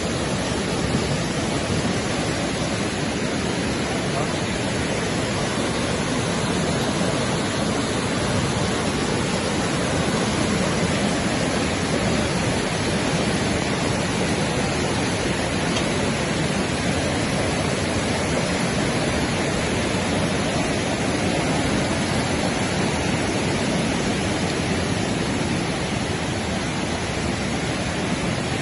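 Steady rushing of a river in flood, the water risen high and running fast.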